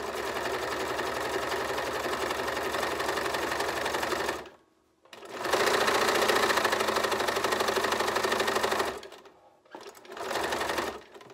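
Bernina sewing machine stitching through a fabric rope of butted strips in three runs: a steady stretch, a short stop, a louder run, then a brief last burst near the end.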